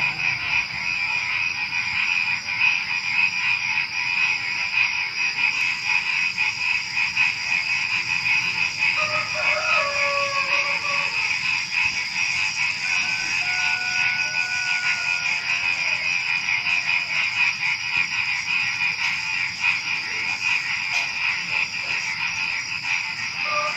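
Dense chorus of frogs and crickets calling together in a steady shrill trill. A rooster crows briefly about ten seconds in and again near the end.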